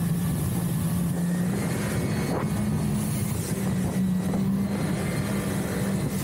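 Jet ski engine running at speed, a steady drone that lifts slightly in pitch a little over two seconds in, over the rushing hiss of water spray off the hull.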